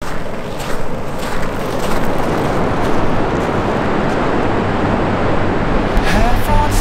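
Steady rushing noise of wind and surf on a beach. Music with a low bass and a sliding melody comes in about six seconds in.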